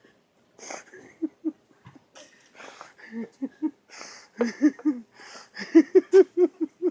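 A person's noisy, wheezy breaths alternating with runs of short voiced grunts, about five a second, loudest in the last two seconds.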